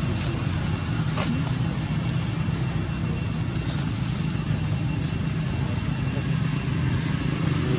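A steady low background rumble at an even level, with a couple of faint clicks near the start and a brief high chirp about four seconds in.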